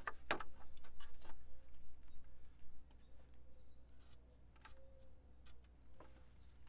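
Light scratching and ticking of a Sharpie marker marking the edges on a steel cross member. The marks come thickly for about the first three seconds, then thin out to a few scattered ticks.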